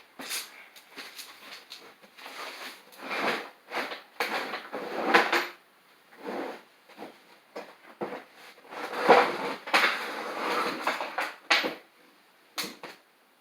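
Metal parts of a disassembled bench vise being handled: an irregular run of scraping and clattering strokes with a few sharp knocks, busiest around a quarter of the way in and again about two thirds of the way in.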